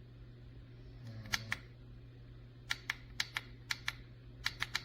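Plastic buttons on a cheap camcorder being pressed and released repeatedly, a series of sharp clicks mostly in close pairs, as the snap button fails to start recording. A faint steady low hum runs underneath.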